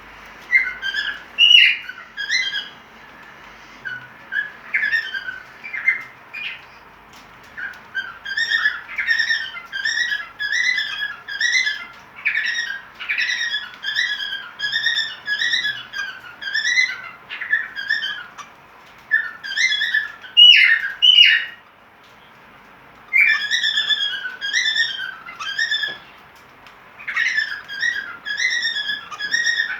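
Cockatiel whistling its in-heat breeding song: phrases of short, repeated warbling whistles, broken by brief pauses.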